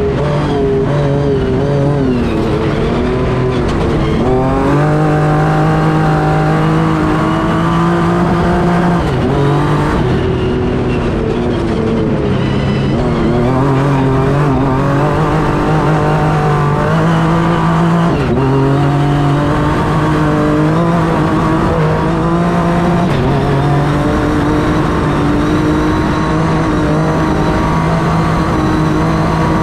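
Honda Ridgeline Baja race truck's V6 engine running hard at high speed, its pitch climbing and then dropping sharply several times as the gears change, over steady road and wind noise, heard from inside the open race cab.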